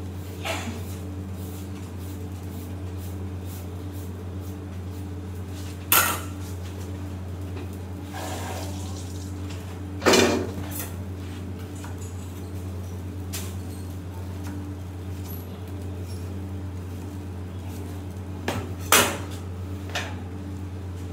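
A metal ladle clanking against a wok a few times: sharp single clanks spaced several seconds apart, one about a quarter of the way in, one near the middle and a close pair near the end. Under them runs a steady low hum.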